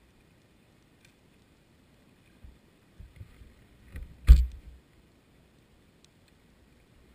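Underwater camera housing jostled on the sea floor: a low rumbling scrape builds over about a second and peaks in one sharp knock about four seconds in. A few faint ticks come before and after it.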